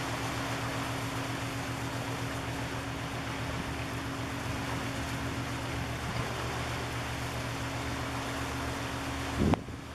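Steady low drone of a ship's engine over a hiss of wind and water, with a brief low thump near the end.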